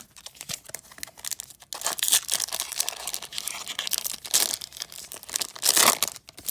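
Foil wrapper of a trading card pack being torn open and crinkled by hand, in irregular surges, the loudest about two seconds in and near the end.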